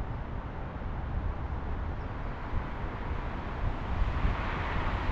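Wind rumbling on the microphone over road traffic, the hiss of passing cars growing louder near the end.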